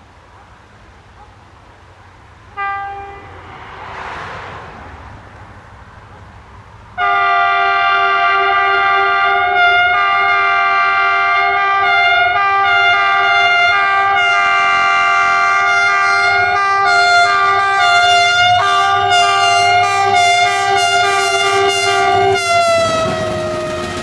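Locomotive horn sounding a chord of several tones: a short toot about two and a half seconds in, then one long blast held for about fifteen seconds. Near the end the horn's pitch drops as the locomotive passes, and the rushing clatter of the passing passenger train follows.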